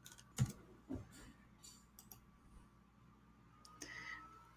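A few faint computer mouse clicks, the loudest about half a second in and another about a second in, then a brief soft hiss near the end.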